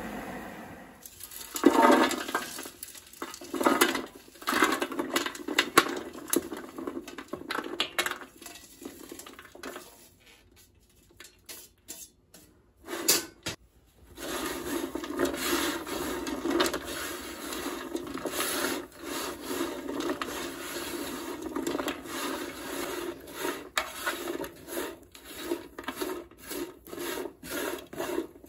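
Chopped dry butterbur roots being stirred and scraped around a pan with a wooden spoon: irregular rustling, rattling strokes, with a quieter lull in the middle.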